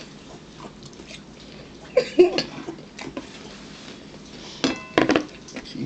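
Tableware handled during a meal: a few sharp knocks of a plastic bowl and fork against dishes about five seconds in, after a short murmured vocal sound about two seconds in.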